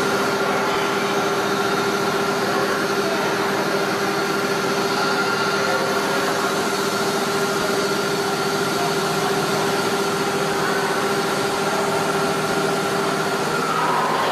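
Five-axis CNC router running steadily, its spindle and drives giving a constant machine hum with several steady whining tones over a noisy rush. Near the end the pitch briefly shifts.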